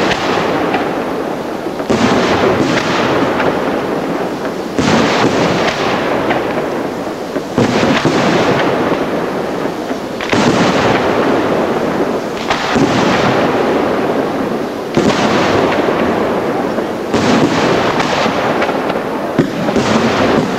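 Fratelli Schiattarella aerial firework shells bursting one after another, a loud bang about every two to three seconds. Each bang trails off slowly into the noise of the others.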